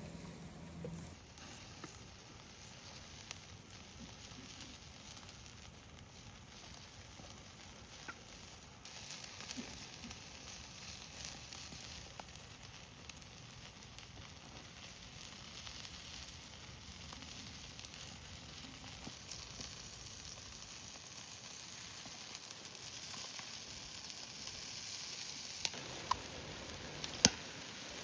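Food sizzling as it fries over a fire: a steady hiss that grows louder about nine seconds in, with a few sharp pops near the end.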